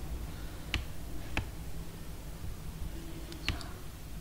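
Computer mouse clicking: four short sharp clicks, the last two in quick succession near the end, over a low steady hum.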